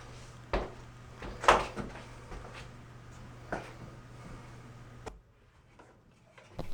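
A few scattered light knocks and handling clatter over a steady low hum; the hum and background drop out abruptly about five seconds in.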